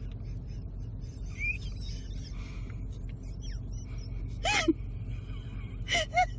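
Kitten mewing: one high, squeaky mew about four and a half seconds in, then two short mews near the end, over a steady low hum.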